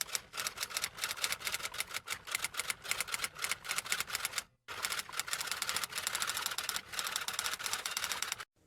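Fast, continuous typing: a rapid run of key clicks, broken by a brief pause about four and a half seconds in, then carrying on before stopping near the end.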